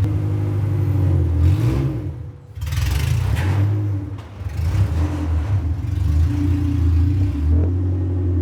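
Honda Civic coupe's engine running as the car is driven, a steady low hum that drops away briefly twice, about two and four seconds in, then picks up again.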